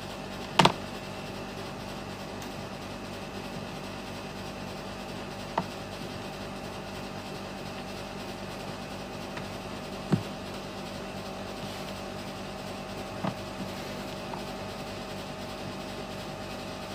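Steady background hum, broken by four light knocks, the sharpest about half a second in, as electrolytic capacitors and multimeter test probes are handled and set down on a cutting mat.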